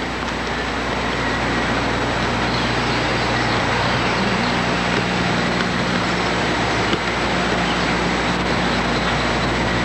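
Steady rushing noise with a low hum underneath, unchanging throughout; no separate knocks or ball touches stand out.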